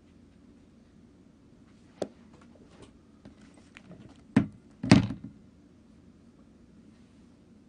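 Handling noises close to the microphone: a sharp knock about two seconds in, a few soft clicks, then two louder thuds at about four and a half and five seconds, the second the loudest.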